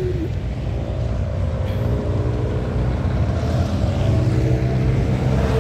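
Road traffic on the bridge: a motor vehicle's engine running with a steady hum over a low rumble, growing a little louder toward the end as it draws nearer.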